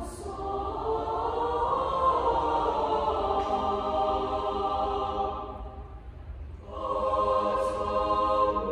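Mixed high school concert choir singing sustained chords in several parts. One phrase is held and fades away about two-thirds of the way through, and after a short pause a new held chord begins.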